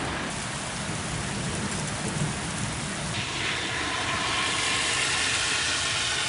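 Steady rain hiss from a heavy thunderstorm downpour, getting louder and brighter about three seconds in.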